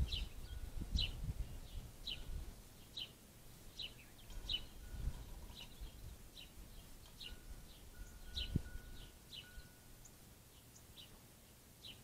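Northern cardinal giving a steady series of sharp, down-slurred chip notes, about two a second. A few low rumbles and a single soft knock are mixed in, loudest about halfway through.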